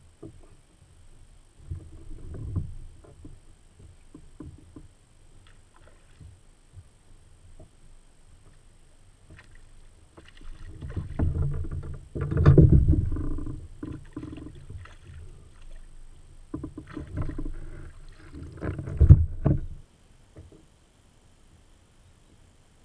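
Irregular knocks, bumps and clatter on a plastic fishing kayak's hull as the angler shifts about and handles his rod and gear, with two loud spells, one around halfway and one ending about three seconds before the end.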